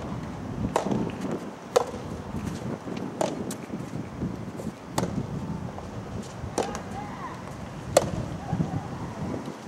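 Soft tennis rally: the rubber ball is struck back and forth by rackets, giving sharp hits about every one and a half seconds, about six in all. The loudest hits come about two seconds in and near the end.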